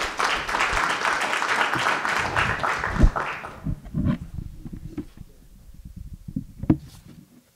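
Audience applauding, dying away about three and a half seconds in. Then scattered light knocks and a sharp click of papers and a microphone being handled at a wooden lectern.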